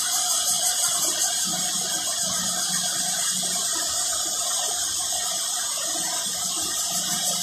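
A chorus of many cicadas calling together: one loud, high-pitched, unbroken buzz that holds steady.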